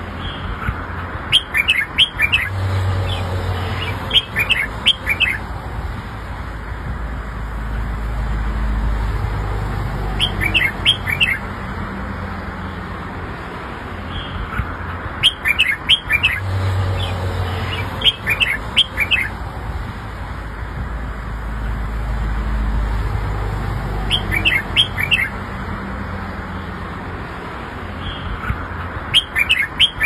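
Red-whiskered bulbul singing: short phrases of a few quick, bright notes, repeated every few seconds, over a faint low rumble.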